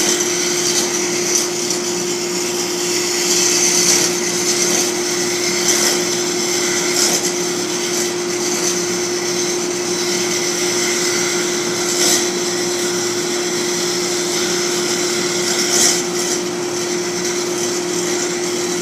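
Lathe running with a tool cutting the spinning workpiece: a steady motor hum under a hissing scrape, with a few brief sharper strokes where the cut bites harder.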